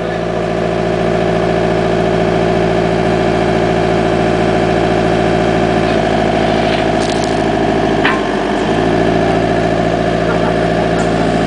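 Backhoe's diesel engine running steadily, with a slight change in its note about six seconds in and a short knock about eight seconds in.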